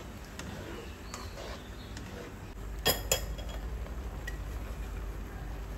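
Spatula stirring shrimp in sauce in a wok, then two sharp clinks with a brief metallic ring about three seconds in, as a utensil knocks against the wok.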